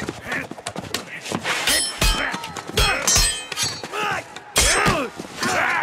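Film fight sound effects of a spear-and-sword duel: repeated metal clangs and thuds of weapons striking each other and armour, some strikes ringing on, mixed with shouts and grunts.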